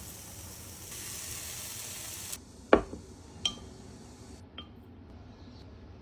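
Food sizzling quietly in a frying pan; the sizzle stops after about two seconds. About a second later comes one sharp knock, then two lighter clicks, like kitchenware being handled.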